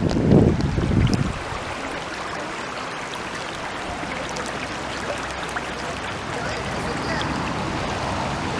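Spring-fed stream water flowing and rushing steadily. Wind buffets the microphone with low rumbling gusts in about the first second.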